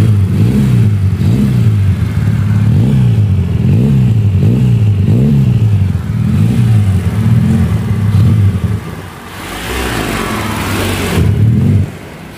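Honda Grand motorcycle engine, which the owner calls a two-cylinder, revved in quick repeated throttle blips, about one rise and fall every three-quarters of a second, then running more steadily. About ten seconds in, a loud rushing noise covers it for a couple of seconds.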